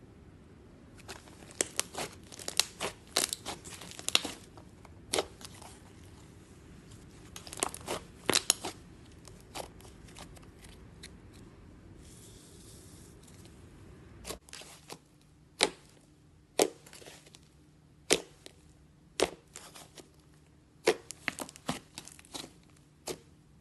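Hands squeezing, stretching and poking soft pink slime, giving sharp sticky pops and crackles as air pockets in it burst. The pops come in quick clusters at first, then singly, about one a second, in the second half.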